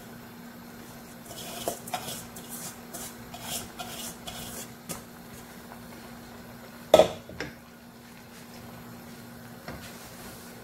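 Pots and utensils being handled as dry rice vermicelli (bihon) goes into a cooking pot: a run of short crackles and rustles, then one sharp knock about seven seconds in.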